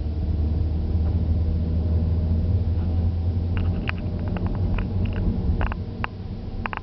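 Steady low rumble of a car's engine and tyres heard from inside the moving car, with scattered light clicks in the second half.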